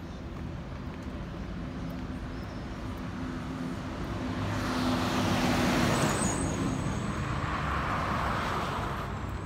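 Street traffic: a car passes close by, its engine and tyre noise swelling to loudest about six seconds in and then fading, over a steady low rumble of traffic.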